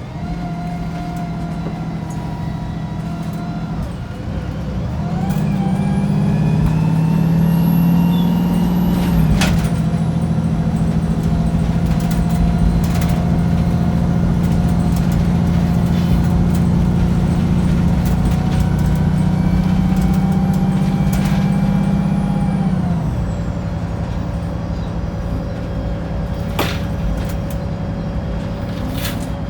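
Engine and automatic gearbox of a Wright Pulsar 2 single-decker bus heard from on board, accelerating hard. The revs climb and the box changes up about nine seconds in. The engine then holds a loud, steady note under load until it eases off a little after twenty seconds. A couple of sharp clicks follow near the end.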